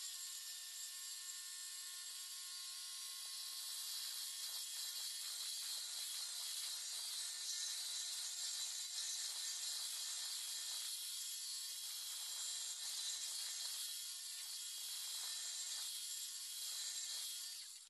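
Electric motor turning a grinding stone against granite: a steady high grinding hiss, with a faint motor whine that fades in and out as the stone is pushed back and forth along the rail.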